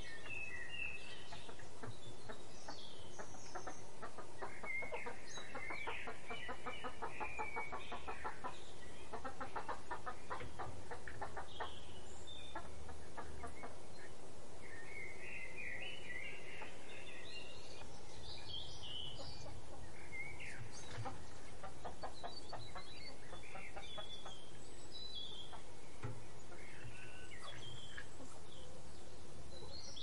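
Backyard birds chirping and calling, with a few stretches of rapid, rattling calls.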